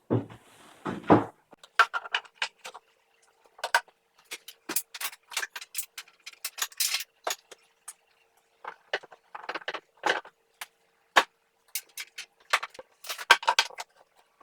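Hands working the plywood dust hood's drawer and lid: a short sliding scrape, then a long run of sharp clicks and light knocks. A faint steady hum runs underneath from about two seconds in.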